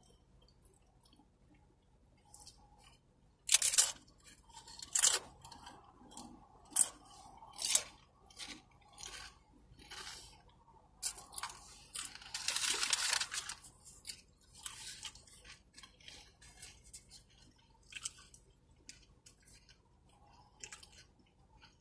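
Tortilla chips being bitten and chewed close to the microphone: irregular crisp crunches that start a few seconds in and go on to the end, with a longer stretch of crunching about two-thirds of the way through.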